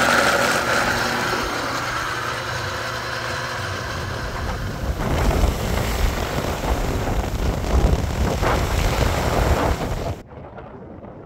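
Vitamix blender grinding oat groats into flour, its motor whine fading over the first few seconds. Then, about five seconds in, wind buffets the microphone in gusts, dropping suddenly to a quieter rush near the end.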